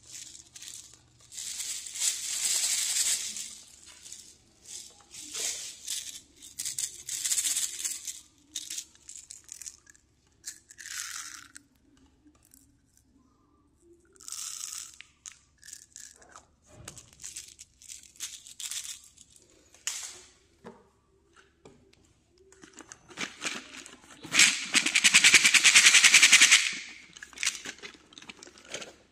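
Plastic candy containers and small candies being handled: scattered clicks, rattling and crinkling with quiet gaps. Tiny candy beads are shaken out of a small plastic bottle about halfway through, and a loud rattle of a few seconds comes near the end.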